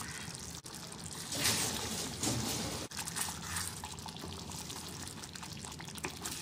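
Thick tamarind curry simmering on low heat in a clay pot, bubbling with small pops, and stirred with a wooden spatula so the gravy sloshes.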